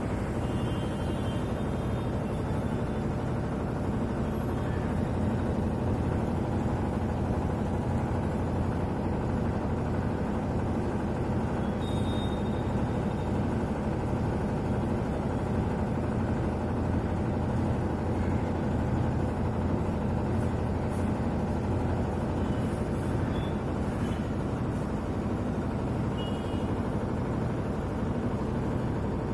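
Whirlpool White Magic Pro XL 800s washing machine running its spin cycle with a steady hum and vibration, which the owner puts down to a faulty shock absorber.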